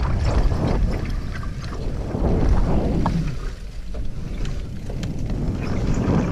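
Wind buffeting the camera microphone over the rumble of a Specialized Turbo Levo e-mountain bike's tyres rolling down a leaf-covered dirt trail, with scattered clicks and rattles.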